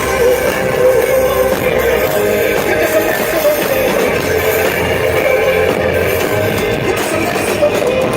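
Live rock band playing loud through a PA, with electric guitar prominent, heard as a continuous wash of amplified music.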